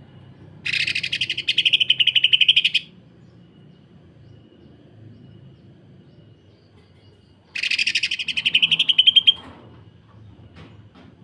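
Cucak ijo (green leafbird) giving two bursts of harsh, rapid-fire rattling calls, each about two seconds long with a quiet gap between. This is the dense 'sewing machine' chatter that Indonesian bird keepers use as masteran.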